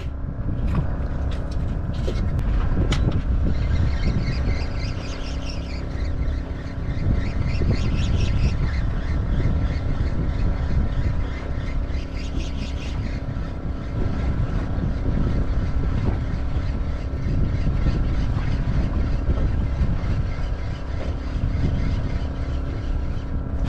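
An engine running steadily, a low even drone with a constant hum.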